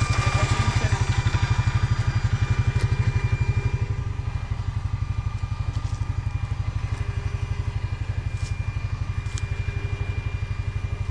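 An engine idling steadily with an even, rapid low chug, and a few faint clicks over it.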